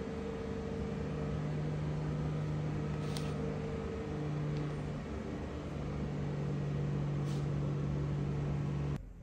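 Steady mechanical hum of a running motor or fan, which cuts off abruptly near the end. Plastic chess pieces click faintly twice as they are set down on the board.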